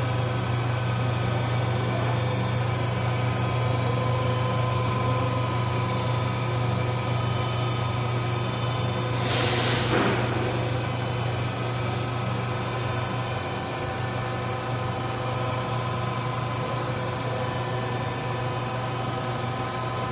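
Vertical milling machine running with a steady low hum and a steady whine, its table traversing under the spindle. A short hiss comes about nine seconds in.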